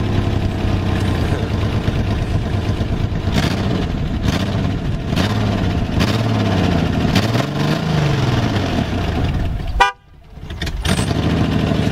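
Ford Explorer engine revving hard as the rear tires spin on gravel in a smoky burnout, the engine note rising and falling. Near the end the sound drops out suddenly for about a second.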